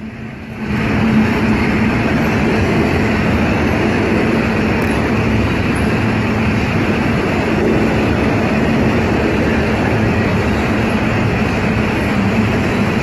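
Norfolk Southern freight train rolling past, a steady, loud rumble of wheels on the rails with a low steady hum.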